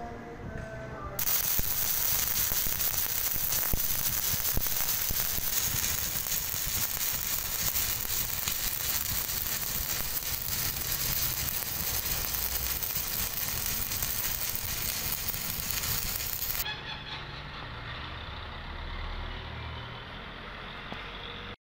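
Electric arc welding a fillet joint on steel: the arc's steady crackling sizzle starts about a second in and cuts off sharply near the end.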